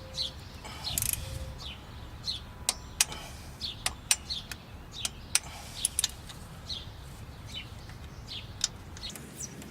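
Scattered sharp metallic clicks from a wrench working the exhaust manifold bolts, with birds chirping repeatedly in the background in short falling chirps.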